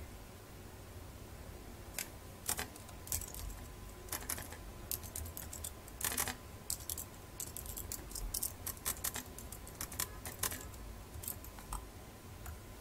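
Typing on a computer keyboard: irregular key clicks, some in quick runs, from about two seconds in until near the end, as a file name is typed.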